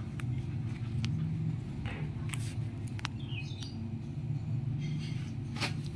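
A steady low hum with a few faint taps and knocks, and a brief high chirp about three seconds in.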